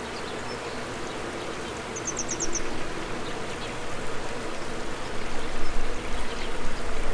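Running water of a small stream, a steady rushing with a faint trickle. About two seconds in, a small bird calls a quick run of five high notes.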